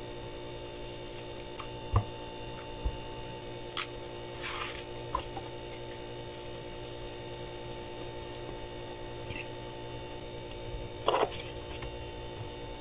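An overripe banana being peeled and broken apart by hand: soft squishy tearing with a few light clicks and a rustle, over a steady background hum.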